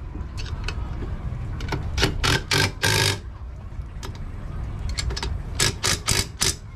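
Sharp knocks in two quick runs of about four, over a steady low rumble.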